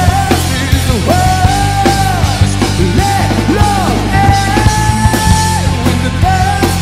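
Rock band playing loud, with drum kit, electric guitar and electric bass, over which a melody of long held high notes each falls away at its end.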